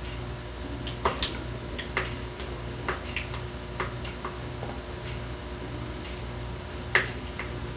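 A utensil clicking against a pot as seasoning is stirred into a cream sauce: light, irregular ticks about once a second, over a low steady hum.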